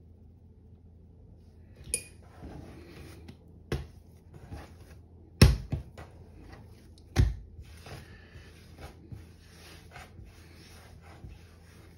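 Hands shaping and rounding a ball of sourdough on a floured marble countertop: soft scraping and rubbing, broken by four sharp knocks on the hard surface, the loudest about halfway through.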